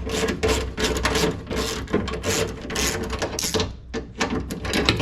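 Power window motor driving a newly fitted front window regulator in a 2005 Jeep Liberty door: a steady motor hum with irregular clicking and scraping throughout. The owner traces the noise to a screw pushing on one of the regulator's spring pulleys.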